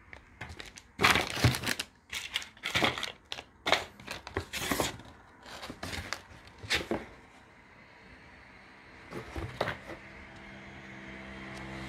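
Plastic zip-lock bags crinkling and rustling in irregular bursts as game pieces in a box insert are handled. A low hum starts to rise near the end.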